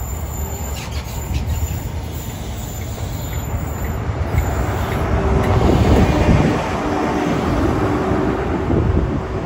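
A Great Western Railway InterCity 125 train moving past: the coaches roll by, then the Class 43 diesel power car passes close. The diesel engine's rumble builds to its loudest about six seconds in, with faint wheel squeal in the first couple of seconds.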